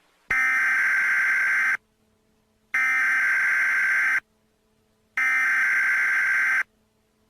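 Emergency Alert System SAME header: three bursts of digital data tones, each about a second and a half long with about a second of silence between them. This is the coded preamble that opens a new emergency alert.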